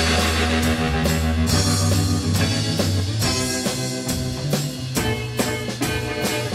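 Instrumental intro of a 1960s-style Italian beat song: electric guitar, bass and drum kit come in together at the start and play on a steady beat of about two strokes a second.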